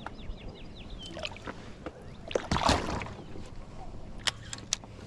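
Water sloshing and a short splash around a kayak about halfway through, with a few sharp knocks on the hull near the end. A bird chirps quickly several times at the start.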